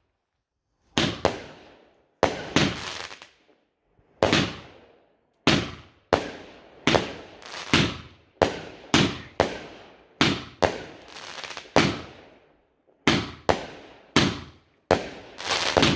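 Fireworks going off in a rapid, irregular string of about two dozen sharp bangs, each ringing away before the next.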